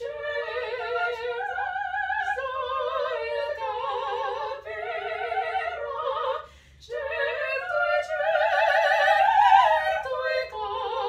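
Operatic duet: two high voices singing together in harmony with strong vibrato, with a brief break for breath about six seconds in.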